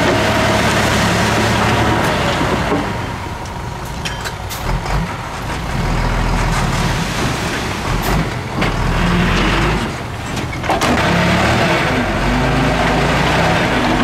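Heavy diesel earthmoving machine working, its engine running under load and easing off for a few seconds in the middle, with a few sharp clanks.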